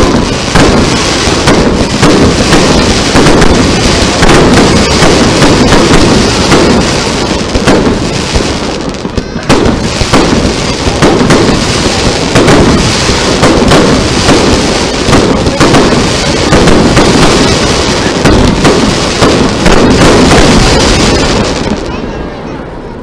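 Aerial fireworks shells firing and bursting in quick succession, a dense, loud barrage of bangs that eases off near the end.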